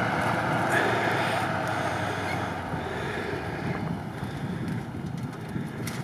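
GAZ-66 truck's engine running as the truck drives along a snowy rut, growing fainter as it pulls away, with wind on the microphone.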